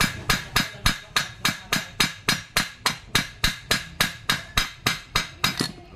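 Rapid, even hammer blows, about three and a half a second, on a metal tool held against the pinion shaft of a Mitsubishi Mirage rack-and-pinion steering rack, each strike ringing briefly: knocking the pinion out of its housing.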